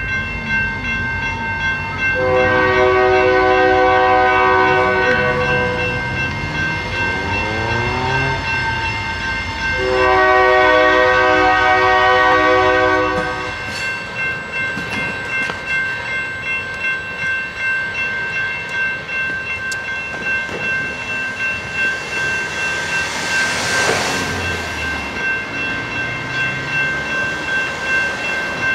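Railroad crossing bells ringing steadily. Over them a passing train sounds its multi-note air horn in two long blasts, with a low rumble of the train. About 14 s in the rumble stops and a crossing's bells keep ringing, with a brief whoosh near 24 s.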